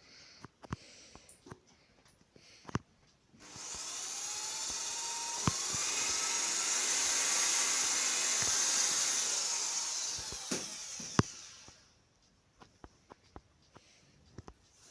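Small firework fountain lit and spraying sparks: a high hiss that starts suddenly about three and a half seconds in, runs for about eight seconds with a few sharp pops in it, and dies away. Faint clicks come before and after.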